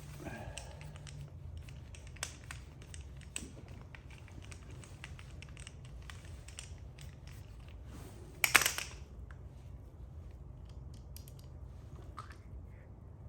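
Small clicks and taps of hand tools and small metal carburetor parts being handled, with one louder short clatter about eight and a half seconds in, over a steady low hum.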